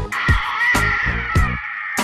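Background music: a steady drum beat under a sustained, slightly wavering high melody line.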